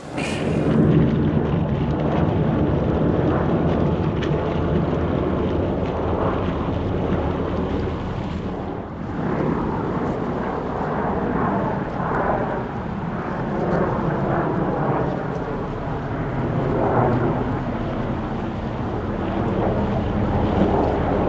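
Radio-controlled model motor cruiser running at speed across a pond, with wind buffeting the microphone. The sound comes up suddenly at the start and then runs steadily with slow swells.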